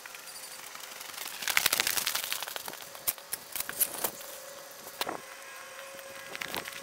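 Boots crunching through snow and the knocks and crackle of a light plastic-sheeted wooden frame being handled and set down on the snow, densest a second or two in, then scattered clicks. A faint steady hum comes in near the end.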